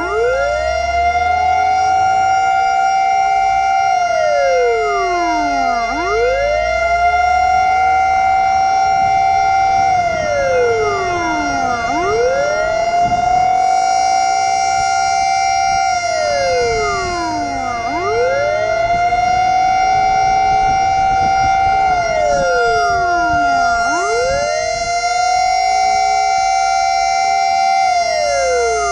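Fire truck siren wailing: the pitch climbs over about two seconds, holds its top note for a couple of seconds, then slides back down, repeating about every six seconds. A steady high tone sounds beneath it throughout, with a low rumble.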